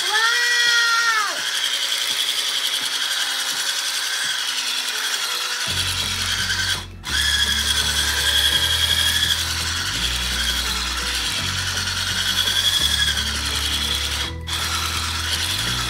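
Cuisinart hand blender's motor running steadily as it beats banana bread batter in a stainless steel bowl, its pitch wavering slightly as the load changes.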